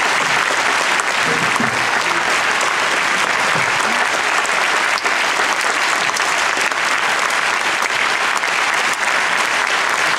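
Large theatre audience applauding steadily, a dense, even clapping that does not let up.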